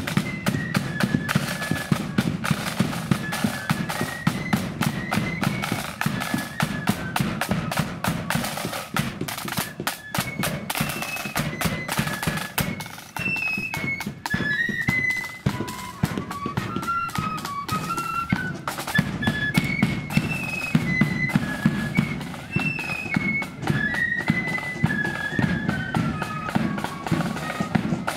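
Marching flute band playing a tune on the move: a high flute melody over rapid snare drumming and a bass drum.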